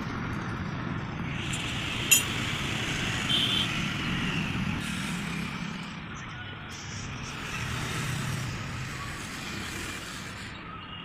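Passing road traffic: a steady rumble and hiss that swells and fades, with one sharp click about two seconds in.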